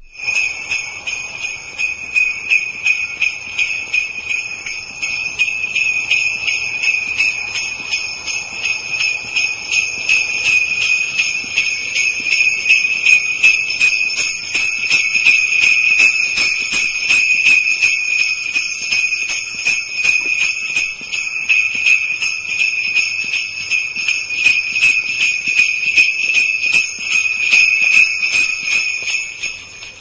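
Jingle bells shaken continuously in a fast, even jingle. The sound starts abruptly and cuts off at the end.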